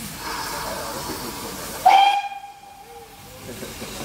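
Steam hissing from GWR pannier tank No. 6430, then about two seconds in a short, loud blast of its steam whistle, one bright tone that dies away over about a second.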